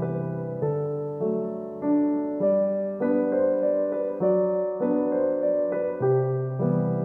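Background solo piano music: a gentle tune with new notes or chords struck a little under twice a second.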